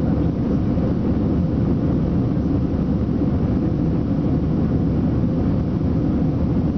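Steady cabin noise inside an Airbus A320 climbing out after take-off: the low, even rumble of its twin turbofan engines and the airflow over the fuselage, heard from a window seat, with a faint steady hum on top.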